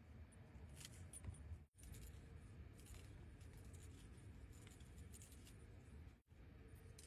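Near silence: faint low background rumble with a few faint light clicks, cut out completely for an instant twice.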